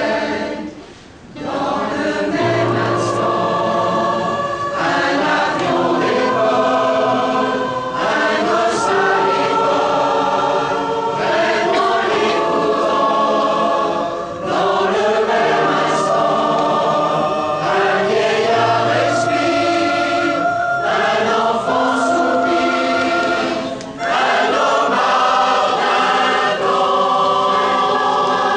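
Large mixed choir of men's and women's voices singing together in harmony, with a short break about a second in and brief breaths between phrases.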